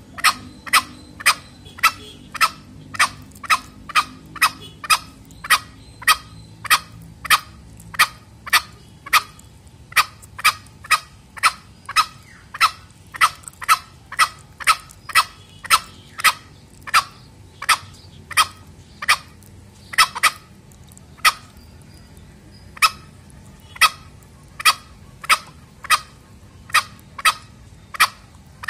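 Male green junglefowl calling in short, sharp notes repeated steadily, about one and a half a second, with a brief pause about two-thirds of the way through.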